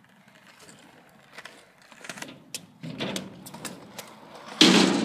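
Kick scooter wheels rolling over concrete, with scattered clicks and rattles that grow louder as the scooter comes closer, then a sudden loud noise near the end.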